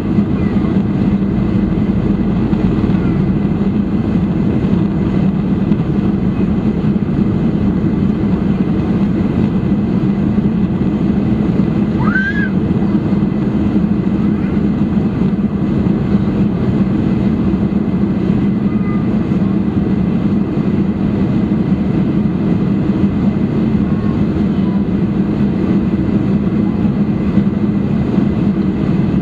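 Steady in-flight cabin noise of a Boeing 747-400: an even drone of engines and rushing air with a low hum, unchanging throughout. A brief rising high tone sounds once about halfway through.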